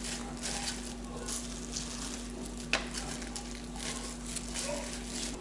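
Thin slices of raw beef handled with a plastic-gloved hand and laid into a glass bowl: soft rustling and handling noises, with one sharp tap a little under three seconds in, over a steady low hum.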